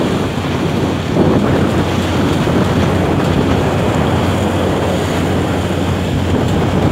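Wind buffeting the microphone over the rush of rough sea breaking against a fishing boat's hull, with a steady low engine hum underneath.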